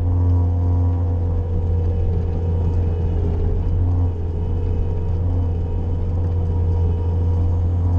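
Bobcat skid-steer loader's engine running steadily, with a strong low hum.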